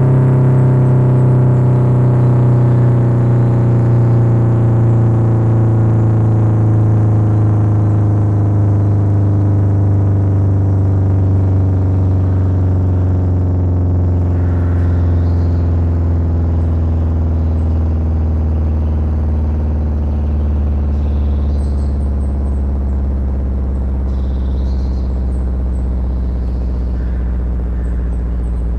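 Federal Signal 500AT outdoor warning siren winding down, its low tone with many overtones sinking slowly and steadily as the rotor coasts to a stop.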